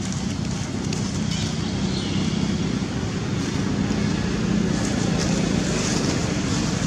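Steady low rumble with a hiss of outdoor background noise, level throughout.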